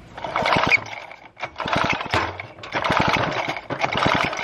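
Pull-cord starter of a 1950s David Bradley two-stroke chainsaw being yanked again and again, about once a second. Each pull is a short rasping whirr with fast clicks as the engine is turned over to spin its magneto for testing.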